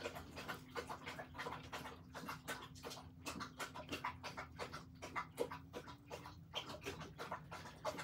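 A dog eating in the background: rapid, irregular crunching and clicking, over a low steady hum.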